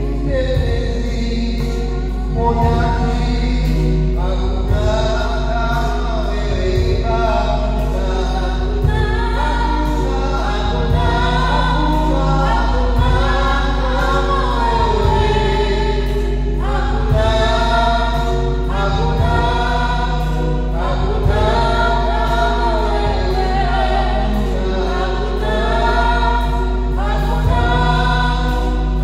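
Choir singing a gospel hymn with a regular low beat, over a steady low hum.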